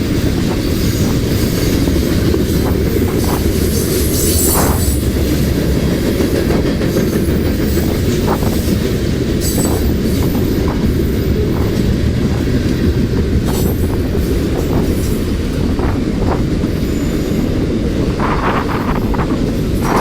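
Freight cars of a long train rolling past at about 33 mph: a steady heavy rumble of steel wheels on rail, with brief wheel squeals scattered through, more of them near the end.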